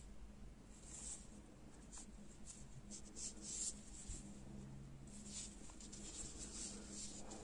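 Faint, scattered rustling and scratching of yarn being drawn through the crocheted fabric of a hat crown as the piece is handled.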